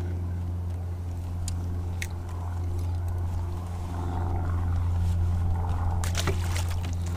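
A boat's electric trolling motor humming steadily with a low, even tone. A few faint ticks from handling gear are heard over it.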